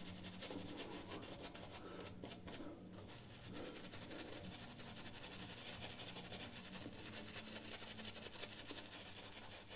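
A 70/30 badger-and-boar shaving brush scrubbing faintly and steadily against a wet beard, a soft bristly rubbing. The water left in the beard is making the lather collapse.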